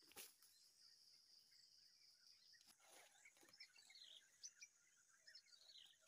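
Faint outdoor ambience: a steady high-pitched drone for the first two and a half seconds, then scattered short bird chirps with a few light rustles among them.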